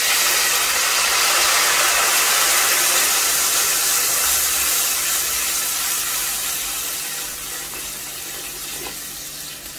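Water poured from a kettle into a pot of onions and tomatoes frying in oil, hissing and sizzling as it hits the hot oil. The hiss is loudest at first and dies down gradually as the pot fills.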